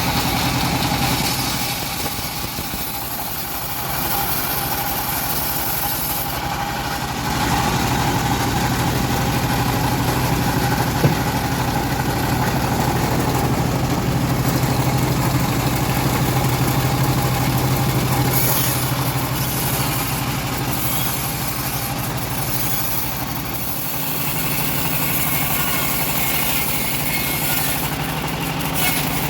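Home-built bandsaw sawmill running steadily with an engine-like hum, its level dipping briefly twice. A single sharp tick about eleven seconds in.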